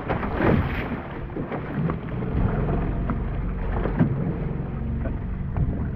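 Wind rumbling on the microphone over open water, with water sloshing and splashing close by.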